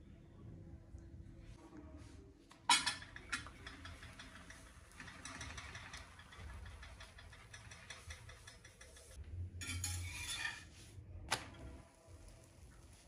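Kitchen handling sounds at a cast-iron flat griddle: a few sharp clinks and knocks of a plate and pan, over a soft steady hiss.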